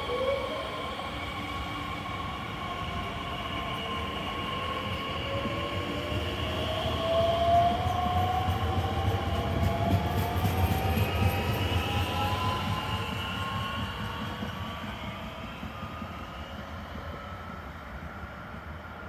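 Electric multiple unit pulling away from the platform, its traction motors giving a whine that rises steadily in pitch as it accelerates, over a low rumble of running gear. The sound is loudest about halfway through and fades as the train draws away.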